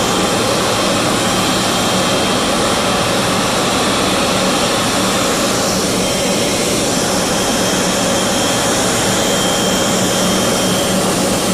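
Boeing 777-200LR's GE90 turbofan engines running at low taxi thrust close by: a loud, steady rush with a high whine in it.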